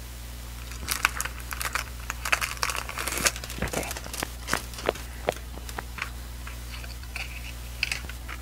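Cellophane shrink-wrap crinkling and tearing in quick crackles as it is peeled off a CD jewel case. The crackling comes in a run for several seconds, then again in a short flurry near the end.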